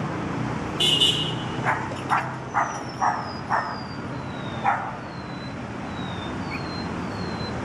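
Red toy poodle puppies, about six weeks old, yipping: a string of short, high yaps in the first five seconds over a steady low hum. A bird repeats a thin, falling chirp through the second half.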